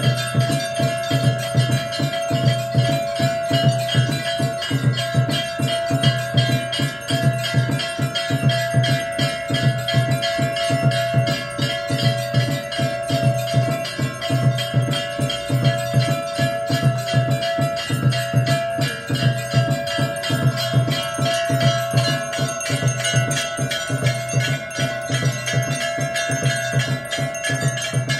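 Temple bells and chimes ringing continuously over a drum beating a fast, steady rhythm: the bell-and-drum accompaniment of a Hindu aarti.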